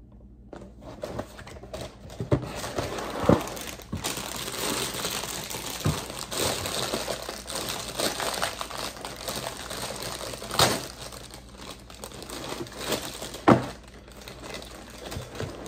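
Cereal box being opened: cardboard top flaps pulled apart and the plastic liner bag crinkling as it is pulled open and torn. Continuous irregular crinkling with a few sharp louder snaps.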